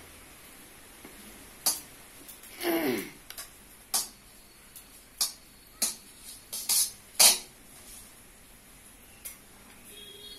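Metal utensils clinking and scraping against a steel wok: a series of sharp clinks spread through, the loudest about seven seconds in, with one longer scrape about three seconds in.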